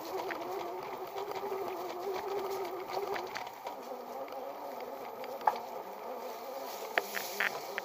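Electric bicycle hub motor whining, a wavering buzz of several tones that slips a little lower in pitch after about three seconds. Scattered sharp clicks from the riding bike break in, the loudest about five and a half seconds in.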